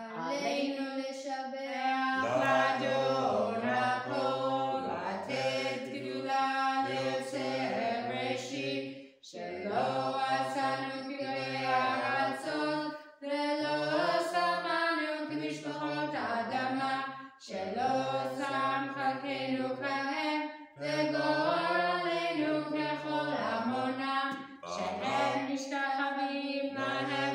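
A boy chanting Hebrew prayers to a sung melody in phrases with short breaths between them, with a second, lower voice singing along.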